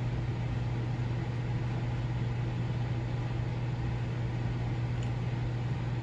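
A steady low hum under an even hiss, unchanging throughout: a constant machine or electrical drone in the background.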